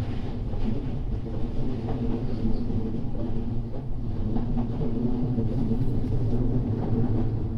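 Odakyu 8000 series electric commuter train running along the line, heard from the front of the leading car: a steady rumble of wheels on rail.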